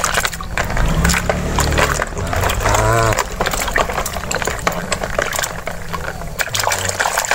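Hands splashing and swishing plastic toy animals through a tub of foamy soapy water, a steady run of irregular sloshes and drips.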